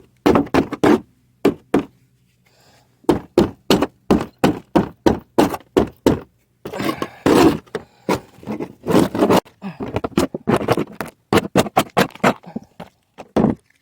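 A hand scraper scraping old sealant off a metal roof seam in short, hard strokes, about two a second, with a short pause about two seconds in.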